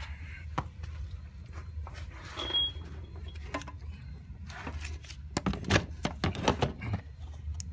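Clicks and knocks of metal tools and engine parts being handled, busiest about five to seven seconds in, with a brief high squeak about two and a half seconds in, over a steady low hum.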